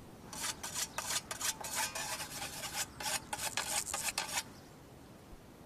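A scythe cutting through mountain meadow grass: a quick, uneven series of rasping swishes that stops about four seconds in.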